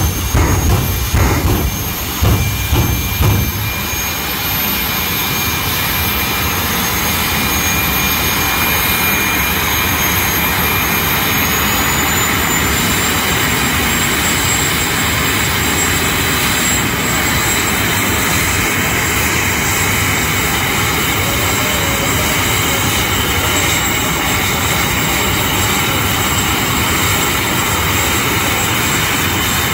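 Jet dragster's turbojet engine running on the starting line: a steady roar with a high whine that climbs in pitch about twelve seconds in and holds. Throbbing pulses of low engine sound in the first three seconds.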